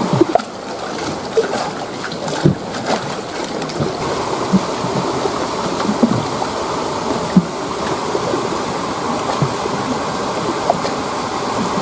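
Steady rush of flowing river water, with a few faint knocks scattered through it.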